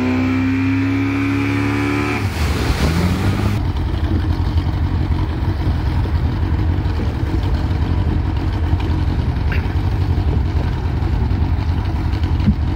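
Yamaha 115 outboard motor running at high revs towing a water skier, then throttled back about two seconds in and running slower, under a steady rush of wind and water noise.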